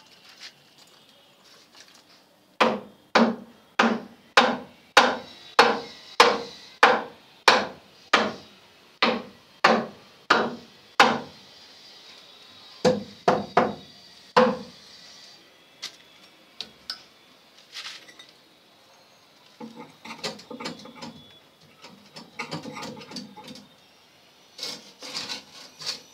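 Wooden panel-board box being knocked into a recess in a brick wall: a steady run of about fifteen sharp knocks, a little under two a second, then three more after a short pause. Lighter knocks and scraping of the wooden box against brick follow near the end.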